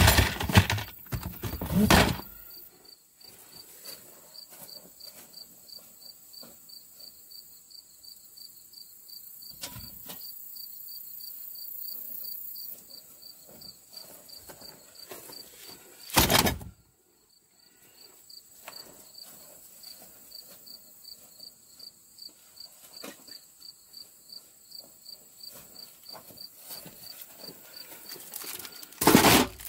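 Insects chirping steadily in an even series of high pulses, broken by a few loud thumps near the start, about halfway through and near the end, with faint knocks and rustling in between.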